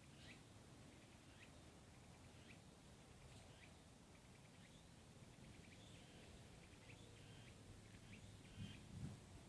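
Near silence: faint outdoor ambience with short, high chirps repeating about once a second, from a small bird or insect. A soft low thump comes near the end.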